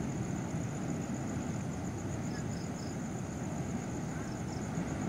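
A steady low rumble runs throughout, under a constant high, pulsing drone of night insects. A few short high chirps come through: three about two seconds in, two more about four seconds in.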